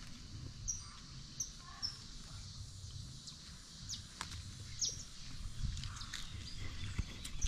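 Birds chirping, short high notes now and then over a faint low rumble, with a few light clicks.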